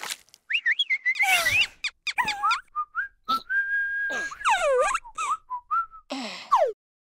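Squeaky cartoon nonsense voices of animated larvae, sliding up and down in pitch like whistling, with one held note in the middle and short breathy hisses between.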